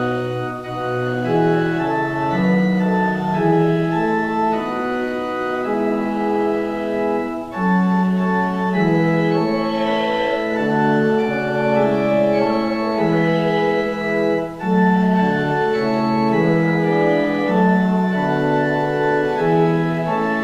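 Organ playing a hymn tune in slow, sustained chords, with two short breaks between phrases.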